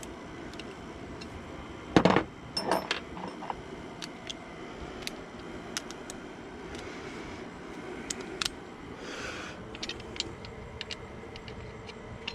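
Metal hand tools and bolts clinking and clattering as they are handled, with a loud clatter about two seconds in and scattered small clicks after.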